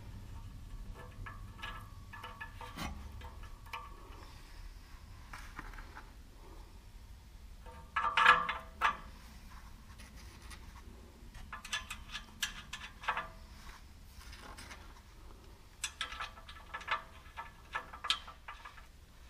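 Small metal parts clinking and scraping as a gasket, a new O2 sensor and M8 nuts are fitted by hand onto the exhaust pipe's sensor studs. There is a sharp metallic clank about eight seconds in, and clusters of lighter clinks later on.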